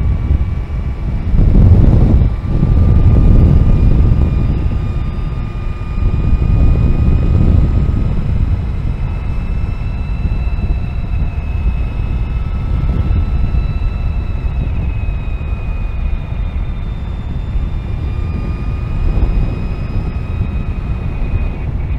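Energica Eva Ribelle RS electric motorcycle riding along: a heavy rumble of wind and road noise, loudest about two to four seconds in. Over it runs the motor's thin whine, drifting slowly up and down in pitch with speed.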